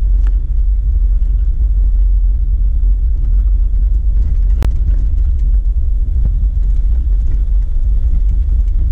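Jeep Wrangler JK driving slowly over a dirt track: a steady low engine and road rumble, with one sharp click about four and a half seconds in.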